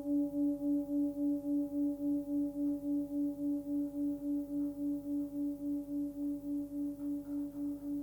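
A 15.7 cm Tibetan singing bowl ringing out on its note near 285 Hz, between C# and D, with fainter higher overtones. The tone wobbles about four times a second and slowly fades.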